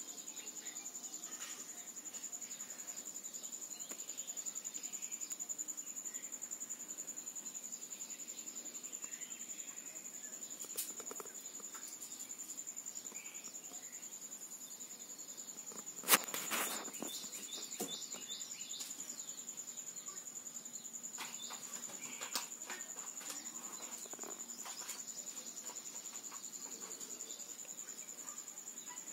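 A steady high-pitched insect trill that never breaks. About sixteen seconds in comes a single sharp knock, followed by a few faint short chirps.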